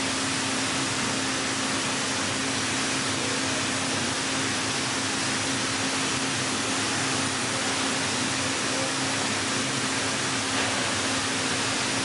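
Heller four-roll CNC plate rolling machine running as it bends a steel plate: a steady, even rushing noise with a constant hum under it.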